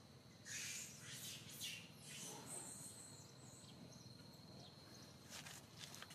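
Faint outdoor ambience of short high-pitched chirps, a cluster in the first three seconds and a couple more near the end, over a thin steady high whine.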